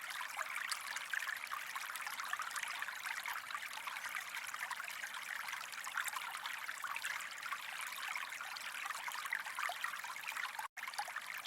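Steady trickling, running water with a fine crackle. It cuts out for an instant near the end.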